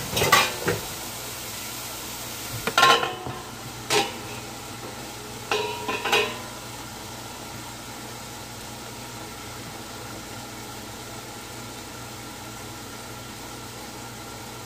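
A pan lid clinking and knocking against a large frying pan several times in the first six seconds, with short metallic rings, as it is set on. Then steak frying under the lid, a steady sizzle.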